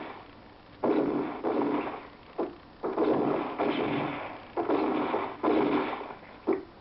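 Film-soundtrack revolver gunshots played through a television speaker: a run of sudden loud shots, with a couple of shorter cracks between them, each trailing off in a brief echo.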